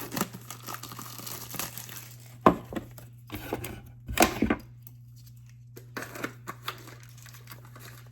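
Packaging wrapper being torn and crinkled as it is pulled off a new hair dryer and its attachments, in irregular rustles with sharp tears about two and a half seconds in and again about four seconds in. A steady low hum runs underneath.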